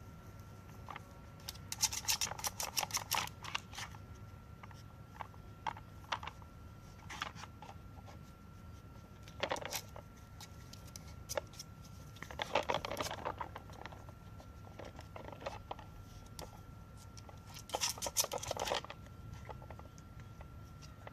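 Nina Ottosson Dog Tornado plastic puzzle toy clicking and scraping as a sheltie puppy paws and noses at it and turns its layers to get at a treat, in four short bursts of rapid clicks with scattered single ticks between.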